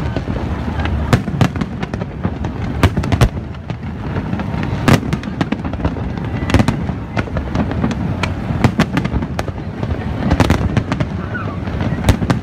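Fireworks going off: a dense, irregular run of sharp bangs and crackles over a continuous low rumble.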